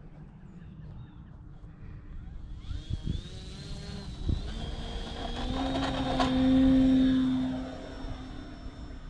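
Electric RC airplane (Great Planes Escapade 40) with a Turnigy SK3-4240-740kv brushless motor and 12x10 APC propeller, throttled up for takeoff. The motor and prop whine climbs in pitch about two and a half seconds in and then holds. It is loudest around six to seven seconds in and fades as the plane climbs away.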